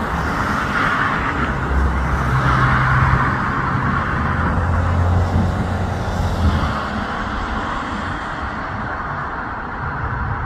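Steady rumble and hiss of a distant jet airliner's engines running on the runway, easing off slightly about two-thirds of the way through.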